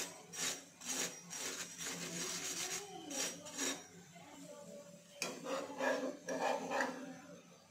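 Flat metal spatula scraping and pressing a methi paratha on a nonstick tawa, in a series of short rasping strokes about two a second, pausing briefly before another run of strokes.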